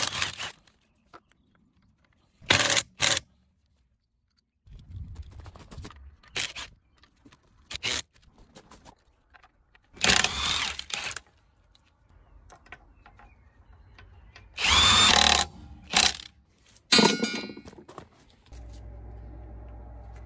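Cordless impact wrench on car wheel bolts, hammering in several short bursts of up to about a second each, with clatter of the socket and bolts in between. A steady low hum comes in near the end.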